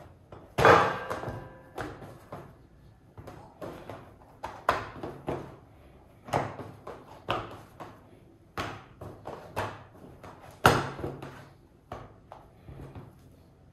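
Sticky krapfen dough being stretched, lifted and folded by hand on a stainless steel worktop: a string of sharp slaps and smacks about once a second as it pulls off and lands back on the steel, the loudest about a second in and near the end.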